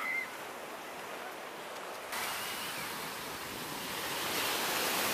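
Surf breaking on a sandy beach: a steady rush of noise that steps up suddenly about two seconds in and grows louder toward the end.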